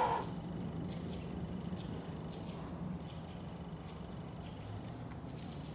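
Quiet outdoor ambience: a steady faint low hum with a few short, high chirps scattered through it. A brief louder sound comes right at the start.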